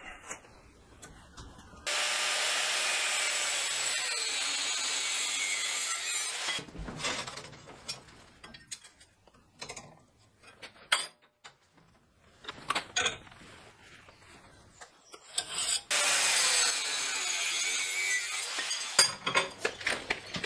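Angle grinder cutting through steel angle iron in two steady bursts, the first about four seconds long and the second about three, with short metallic clanks and knocks between them.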